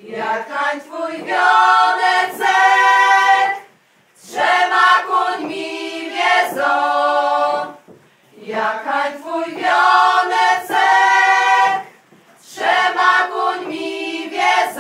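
Group of women singing an unaccompanied folk wedding song of the capping ceremony (oczepiny), in four phrases of about four seconds each with short breaks for breath between them.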